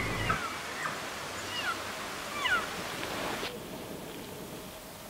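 Cow elk mews: a few short, high calls, each falling in pitch, in the first three seconds.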